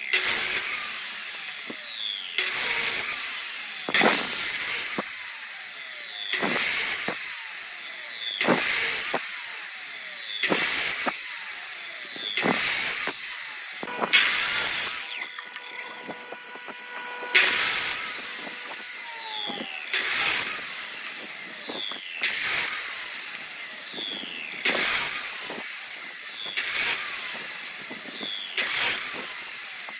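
Miter saw cutting a wood block into thin slices, more than a dozen short cuts about every two seconds. Each cut is a sharp burst as the blade bites the wood, then a whine that falls away as the blade spins down. There is a short pause around the middle.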